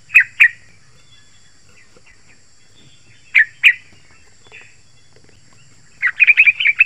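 Yellow-vented bulbul (trucukan) calling: two sharp notes at the start, two more about three and a half seconds in, then a rapid run of notes near the end.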